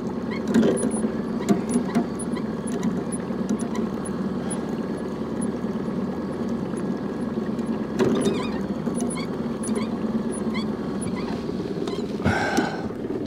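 Outboard motor running steadily at slow trolling speed, with scattered short clicks as a rod's reel is cranked in against a hooked fish.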